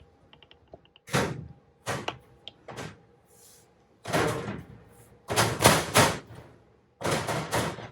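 An enclosure panel being slid and worked into place, with a series of scraping, rattling knocks as its lip is seated: five bursts, the longest and loudest around the middle.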